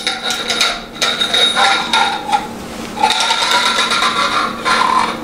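Motorcycle fork spring being fed down inside the metal fork tube, its coils scraping and rattling against the tube with a metallic ringing, in two spells with a short pause between.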